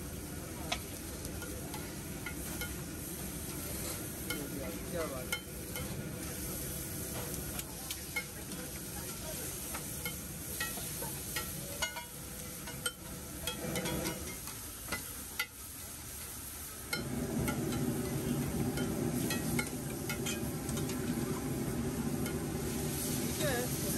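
Egg gravy frying in butter, sizzling steadily as it is stirred, with frequent sharp taps and scrapes of a spatula on the pan. About two-thirds of the way through, the sizzle grows louder and fuller.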